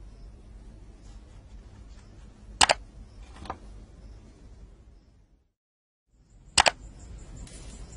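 Sharp double clicks, each pair two snaps in quick succession, heard twice about four seconds apart over a low background hiss; the sound cuts out completely for about half a second between them.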